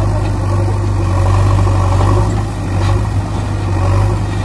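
Heavy machine's engine idling with a steady low hum, which breaks off abruptly at the end.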